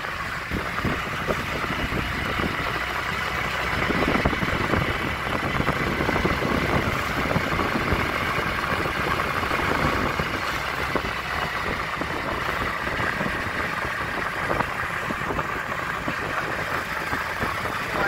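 Steady engine and road noise of a moving vehicle, heard from on board, with a faint steady high whine.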